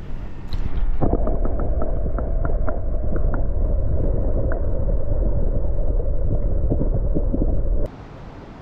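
River water heard from underwater as a caught trout is let back into the river: a loud, muffled rush with small bubbling clicks. About a second in the sound turns muffled, and near the end it snaps back to the open-air sound of the river.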